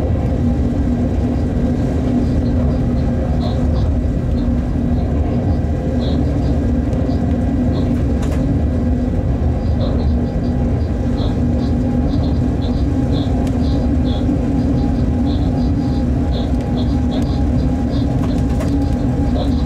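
Freight locomotive cab noise at speed: a steady running rumble with a constant hum of several fixed tones, and short high chirps recurring throughout.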